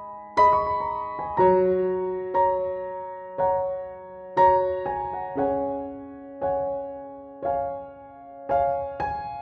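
Slow background keyboard music, a piano-like melody of single struck notes about one each second, each ringing and fading before the next.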